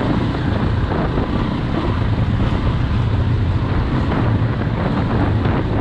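KTM EXC 400 four-stroke single-cylinder dirt bike engine running at a steady note while riding, with heavy wind noise on the microphone.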